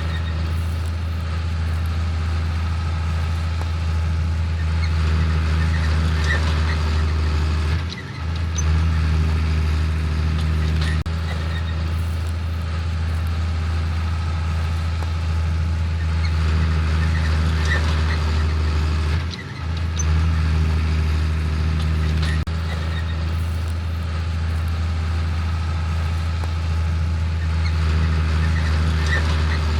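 Diesel engines of harvest machinery (tractors, balers, combine) running steadily under load, a continuous low drone that drops out briefly twice.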